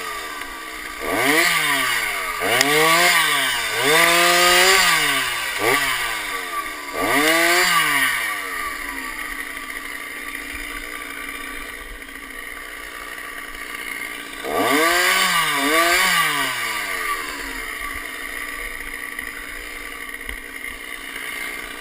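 Chainsaw engine revved up and let back down again and again, about seven times, each rev a quick rise and fall in pitch. It runs at a lower, steady idle in between, with a longer idle stretch in the middle.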